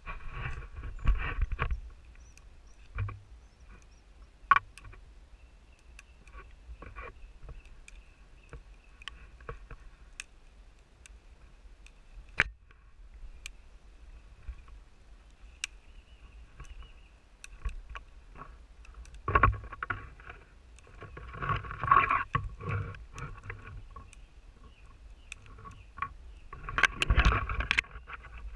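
Fine dry twigs being snapped off low pine and fir branches and gathered by hand for kindling: scattered sharp snaps, with louder bursts of rustling branches and needles about a second in and again near the end.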